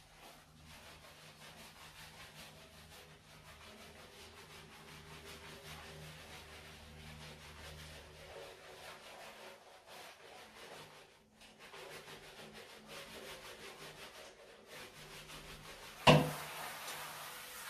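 Hands rubbing and massaging a marmot's wet fur, a soft continuous rubbing. Near the end there is a sudden loud bump, followed by a steady hiss.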